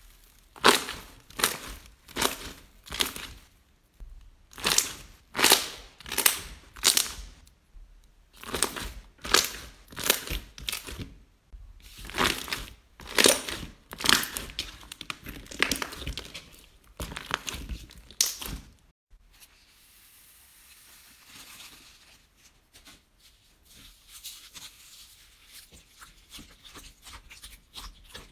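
Slime being squeezed and pressed by hand: a run of short, sharp squishes about one to two a second, often in groups of three or four. Near the two-thirds mark it drops to faint, soft handling.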